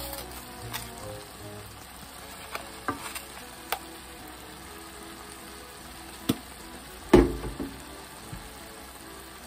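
Ground chicken, tofu and komatsuna sizzling and simmering in a frying pan, with a few sharp clicks and one louder knock about seven seconds in.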